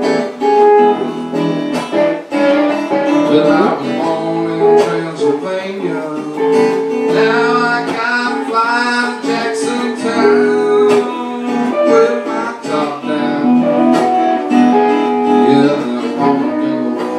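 Live guitar music, a song played with held notes and some bending, wavering notes in the middle, with no sung words.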